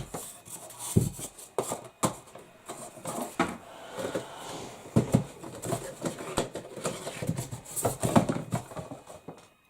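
Irregular knocks, taps and rustles of a Blue Yeti microphone and its packaging being handled, with the heavier bumps near one, five and eight seconds in.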